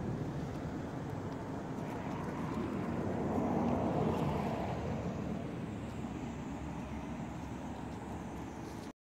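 Steady low outdoor rumble, such as distant road traffic, swelling slightly a few seconds in and cutting off abruptly near the end.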